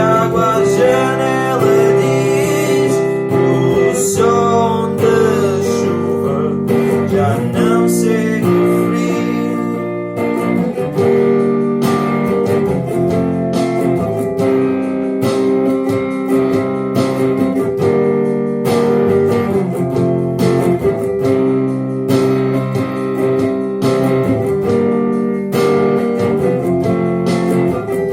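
Looped acoustic guitar music: layered strummed and plucked guitar parts built up on a loop station. A wavering, wordless melodic line rides over it for the first ten seconds or so, then a steady percussive beat of sharp strokes takes over.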